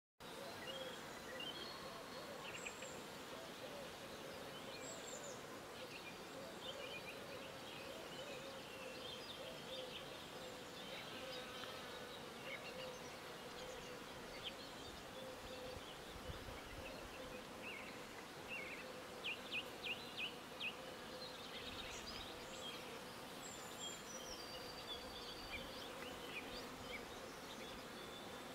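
Steady buzzing of bees around a flowering tree, with songbirds chirping and calling over it. A quick run of five louder chirps comes about two-thirds of the way through.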